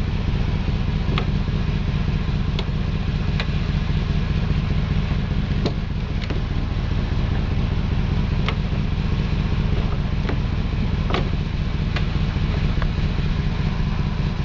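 Mercedes car engine idling steadily, with scattered sharp clicks every second or two.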